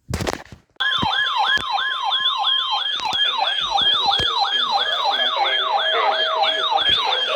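Yelp siren: a tone sweeping quickly up and down about three times a second, with a steady tone under it for the first couple of seconds. It follows a short burst of noise at the start.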